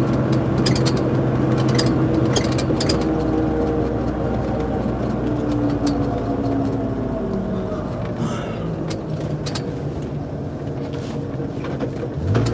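Jeep engine and road noise heard from inside the cabin while driving. The engine note falls gradually over several seconds as the Jeep slows or coasts, then rises sharply again near the end as it accelerates.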